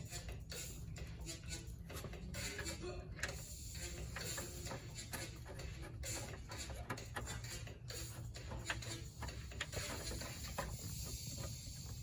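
Metal hand tools clicking and clattering in irregular runs against car suspension parts, over a low steady hum.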